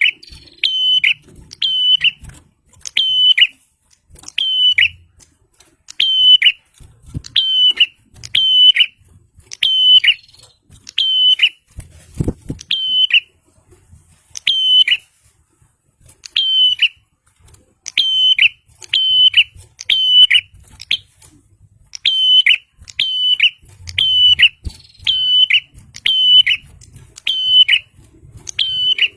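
A prinia (prenjak) calling non-stop: a loud, sharp note repeated about once a second, each note bending down in pitch at its end, with a short pause about halfway through.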